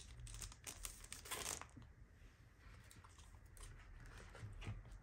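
Clear plastic sleeve crinkling as it is handled, densest in the first second and a half, then fading to quieter rustling and a few soft taps as the package contents are moved.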